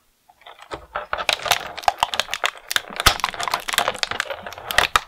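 Clear plastic packaging tray crackling and clicking as fingers pry an action-figure backpack out of it: a dense run of sharp clicks and rustles starting about a second in.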